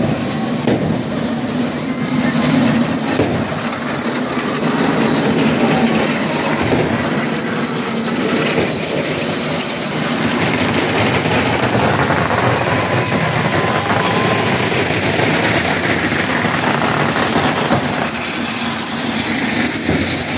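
Steady din of a street crowd and passing marchers with scattered voices, mixed with heavy rain on the street.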